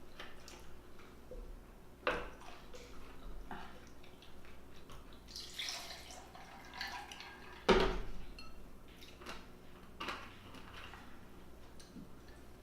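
Close-miked eating of a buttery seafood meal: wet smacking and slurping with scattered clicks and knocks, the sharpest knock about eight seconds in.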